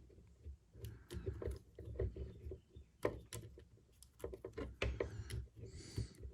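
Plastic parts of a transforming MPM-11 Ratchet figure being handled, with scattered small clicks and knocks as pieces are rotated, folded and snapped into place.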